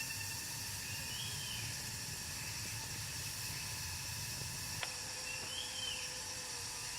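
Steady outdoor hiss with a constant insect-like drone, two short chirps and one sharp click a little before five seconds.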